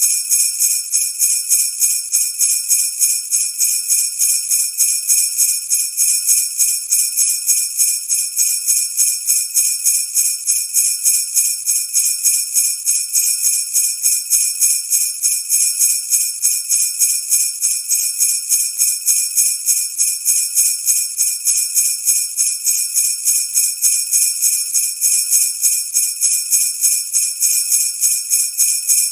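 Jingle bells shaken steadily in an even rhythm, several shakes a second.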